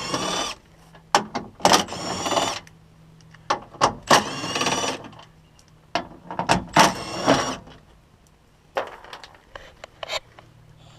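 A handheld power driver spinning out the bolts of a car door's window regulator in four short runs, each whine rising in pitch, with metallic clicks and clanks between them.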